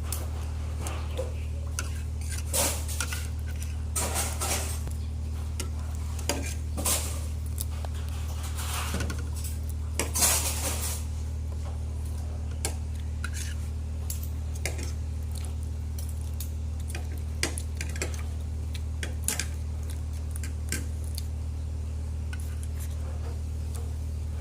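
Spoon and dishes clinking and scraping at irregular intervals during a meal of shrimp and rice, the loudest scrape about ten seconds in, over a steady low hum.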